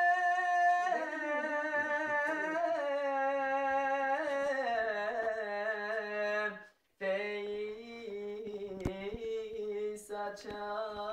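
Young man's voice singing unaccompanied, drawing out long ornamented notes without words that slide and waver from pitch to pitch, in the manner of a Turkish ilahi (Sufi hymn). It breaks off briefly just past halfway, then picks up again on a lower held note.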